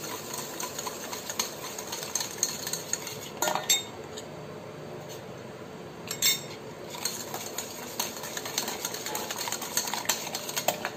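Wire whisk stirring cake batter in a stainless steel bowl, scraping and clinking against the metal sides as flour is mixed in, with a few sharper clinks along the way.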